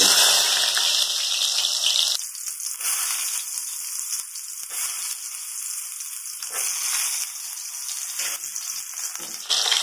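Whole pointed gourds sizzling in hot mustard oil as they are dropped into the pot one by one. The sizzle is loudest for about the first two seconds, then settles into a steadier, quieter sizzle with small crackles.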